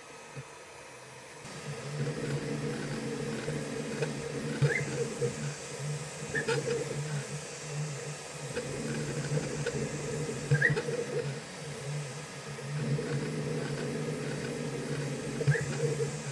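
FLSun V400 delta 3D printer printing: its stepper motors hum and whir steadily as the printhead moves, with short rising chirps every few seconds and occasional clicks. The printing sound starts about a second and a half in, after a faint steady hum.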